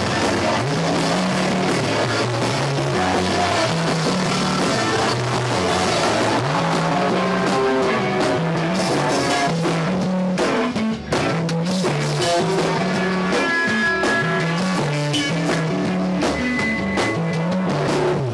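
Rock band playing live: electric guitar, bass guitar and drum kit together, with a brief break about eleven seconds in.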